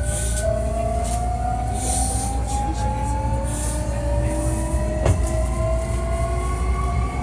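Hankyu 1300 series electric train car running, its motor and gear whine climbing slowly in several pitches as it accelerates, over the rumble of wheels on rail. This car is known for an unusual acceleration and braking sound. A sharp click comes about five seconds in.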